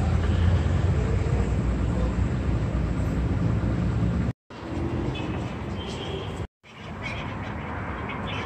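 Outdoor city ambience with a steady low rumble, in short clips joined by abrupt cuts to silence about four and a half and six and a half seconds in.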